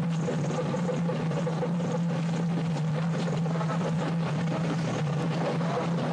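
A vehicle engine running steadily, a constant low drone with noise over it.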